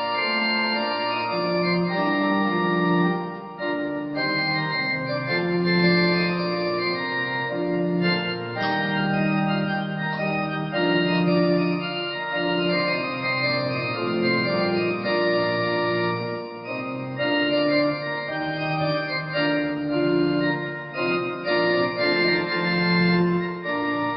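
Organ playing a slow piece in sustained chords, with a bass line under held notes that change every second or two.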